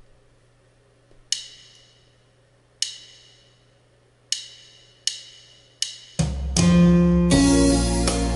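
Electronic arranger keyboard: five sharp, ringing percussive hits a second or so apart, then about six seconds in the full accompaniment comes in with bass, drums and a melody.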